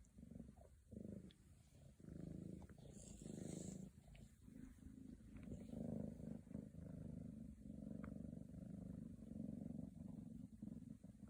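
Scottish Fold kitten purring close up, the purr coming in even breaths about one a second, with a few faint clicks.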